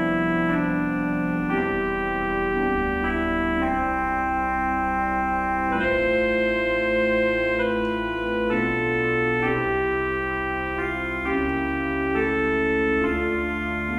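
Church organ playing a slow hymn in full, sustained chords, the harmony changing every second or two over a deep held bass line.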